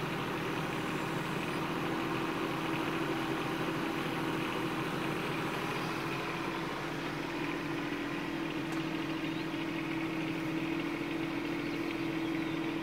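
Bobcat 418 mini excavator's diesel engine running steadily while the operator swings the arm and dumps a bucket of dirt.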